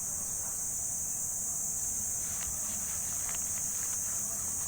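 Steady high-pitched insect chorus, like crickets, with a low hum under it and a few faint soft ticks around the middle.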